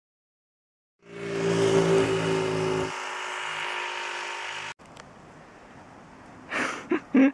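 Motor vehicle engine and road noise, a steady hum with hiss, starting about a second in and cutting off suddenly a little past the middle. Quieter outdoor background follows, with a few short loud sounds near the end.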